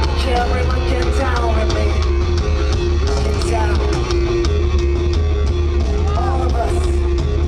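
Loud live rock music from a band playing on stage, with a heavy, constant low end, rapid drum hits and a melody line gliding over the top.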